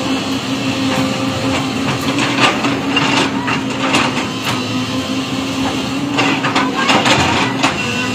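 JCB tracked excavator's engine running with a steady drone as its steel bucket pushes a large boulder across the dirt, with irregular knocks and scrapes of metal on rock and ground.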